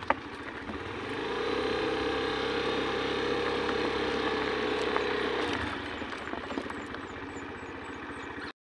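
Motorcycle engine running while riding along a gravel dirt road, with a steadier, stronger note from about a second in that eases off after about five seconds. The sound cuts off suddenly near the end.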